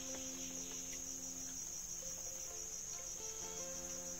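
Steady, high-pitched chorus of forest insects.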